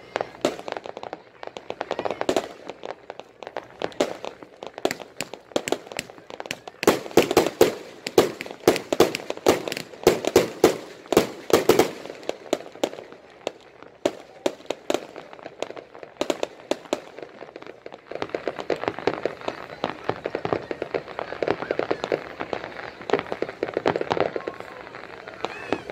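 Fireworks and firecrackers going off in rapid, irregular pops and bangs, thickest about a third of the way in, with aerial shells bursting.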